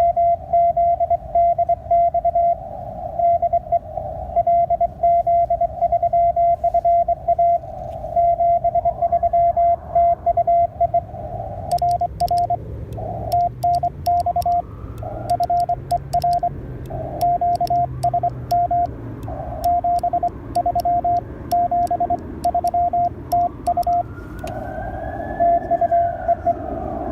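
Morse code (CW) from an amateur radio transceiver: a steady tone of about 700 Hz keyed in dots and dashes over band hiss. From about twelve seconds in, sharp clicks come along with the keying.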